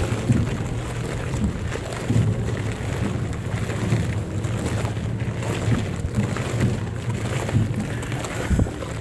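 Wind rumbling on the microphone over the tread of a column of soldiers marching on a gravel path, with soft low thumps every second or so.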